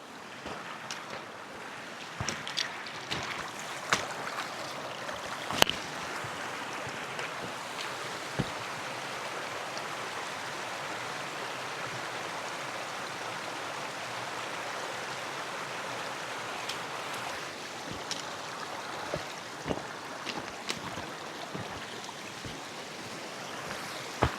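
Steady rush of running water, like a stream, with scattered knocks and steps over it, most of them in the first few seconds and near the end.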